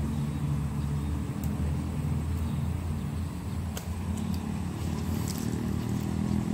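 A motor engine running steadily, a low rumble, with a few faint clicks over it.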